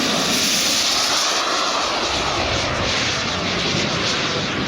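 Turbine engine of a large radio-controlled model jet glider running in flight, a steady rushing drone whose tone shifts and sweeps as the aircraft flies past.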